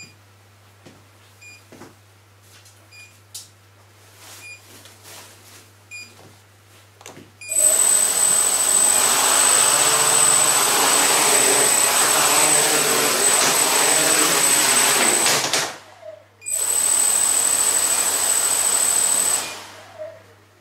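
TBS Discovery quadcopter's four brushless motors and propellers spinning up: a loud whir of the props with a steady high whine, running about eight seconds, dropping out briefly, then running again for about three seconds before winding down. Faint ticks come before the motors start. The quad is lifted a little off the floor.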